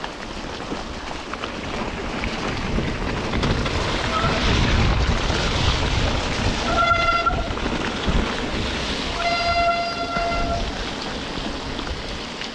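Riding noise of a mountain bike on a wet, muddy trail in a storm: a steady rush of wind and rain with a low rumble. A high held squeal cuts in twice, briefly about 7 seconds in and for about a second and a half near the 9-to-10-second mark.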